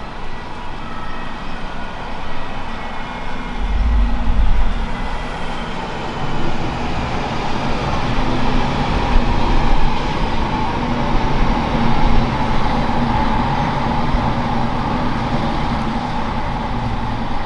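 A train running at the station: a steady mechanical rumble that swells about four seconds in, with a steady hum behind it.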